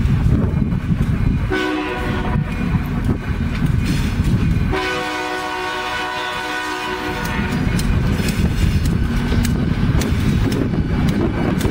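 Diesel freight locomotive's air horn sounding for a grade crossing, a chord of several steady tones: a short blast about a second and a half in, then a longer blast of about two and a half seconds. Under and between the blasts is the low rumble of the approaching train, with sharp clicks of the wheels on the rails near the end.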